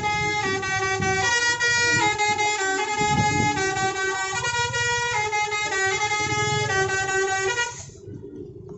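Basuri 'telolet' multi-tone musical air horn on a tour bus playing a tune of held notes, stepping to a new pitch every half second or so, and cutting off about eight seconds in.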